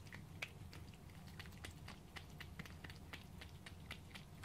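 Tabby cat eating wet cat food from a bowl: faint, irregular wet chewing clicks, several a second.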